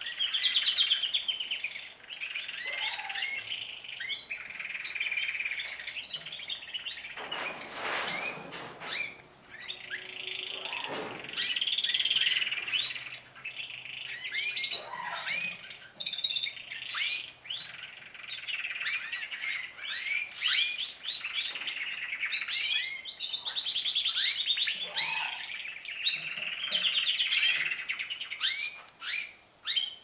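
Male domestic canaries singing: long, continuous rolling trills laced with many quick, sharp sweeping notes.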